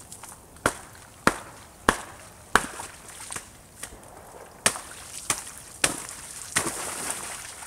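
Thin pond ice being broken through at a frozen cattail margin: four sharp cracks about two thirds of a second apart, a pause, three more, then a longer stretch of crunching near the end.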